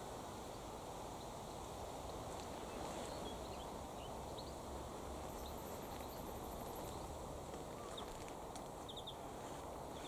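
Outdoor ambience: a steady low wind rumble with faint scattered bird chirps and, about halfway through, a brief faint high-pitched rapid trill.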